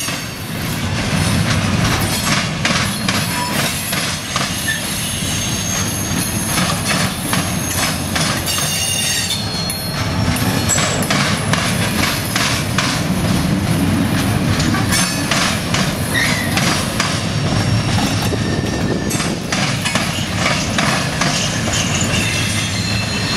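Freight cars rolling over a railroad diamond crossing: the wheels bang steadily over the crossing's gaps, with steel wheel flanges squealing high on and off.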